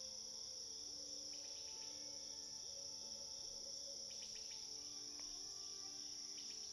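Faint steady insect chorus, like crickets, with a few short chirps about four seconds in and again near the end.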